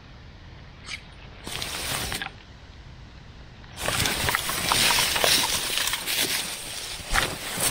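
Dry grass, leaves and clothing rustling and scraping as a person lying on the ground shifts about, with small clicks of a rifle being handled. It starts as a brief rustle, then swells into a loud, continuous rustling about four seconds in.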